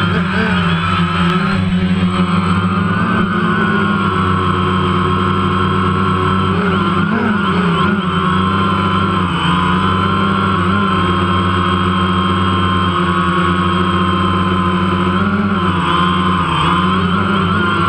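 A DJI Phantom quadcopter's four electric motors and propellers whining steadily in flight, heard up close from the camera slung beneath it. The pitch wavers slightly a few times as the drone adjusts its position.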